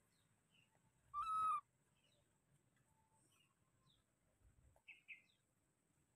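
Baby monkey giving one short, clear call about a second in, a single held note lasting about half a second. Faint short bird chirps sound around it, with two brief chirps near the end.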